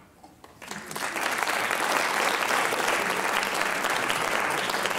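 An audience applauding: a brief hush, then clapping breaks out under a second in and holds steady.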